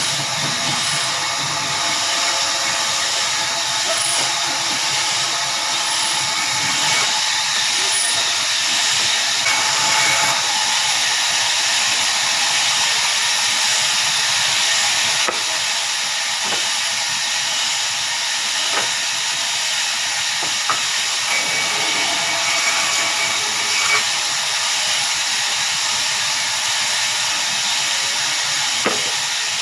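Sawmill machinery running, most likely the saw working a log. It makes a steady, hissing noise with faint whining tones and a few sharp knocks in the second half.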